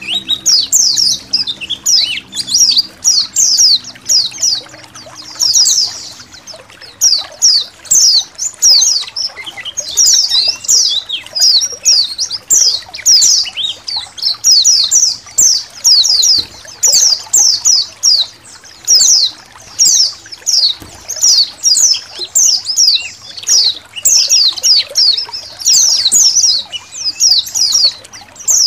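A flock of white-eyes (pleci) chirping and twittering in quick bursts of thin, high notes, over faintly trickling water.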